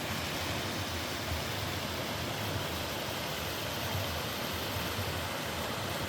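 Mountain stream water rushing steadily over rocks: a full, even sound with a low rumble underneath.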